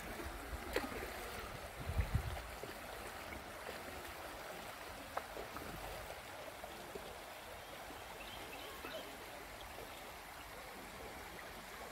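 Shallow river water running and rippling over a rocky, gravelly riffle: a steady, even rush. A couple of brief low bumps about two seconds in.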